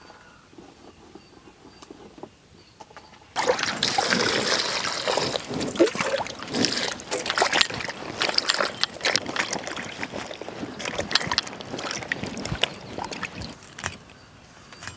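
Vegetables being washed by hand in a clay pot of water: sloshing and splashing that starts suddenly about three seconds in and runs until near the end.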